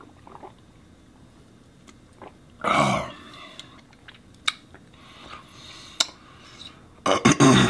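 A man finishing a chugged glass of beer, with mouth and breath sounds: a short loud exhale about three seconds in and a few small clicks. Near the end comes a loud cluster of knocks and noise as the emptied glass is set down on the wooden bar top.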